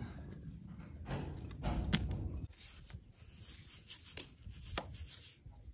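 Steel trowel scraping wet mortar out of a bucket and spreading it on a masonry chimney. A sharp knock comes about two seconds in, then repeated scrapes in the second half.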